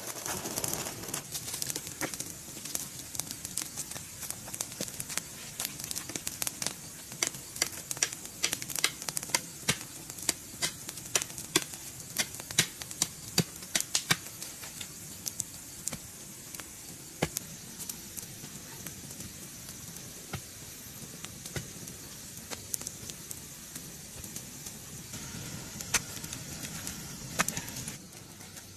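Hand tools striking bamboo during construction work: a run of sharp, irregular knocks and taps, thick through the first half and thinning out in the second.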